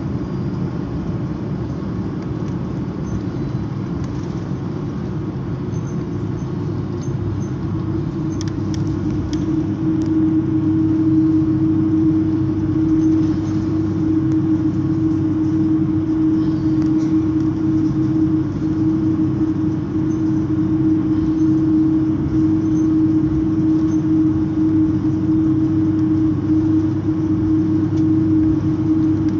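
Cabin noise of an Airbus A330 airliner taxiing after landing: a steady engine rumble with a droning hum that grows louder about ten seconds in.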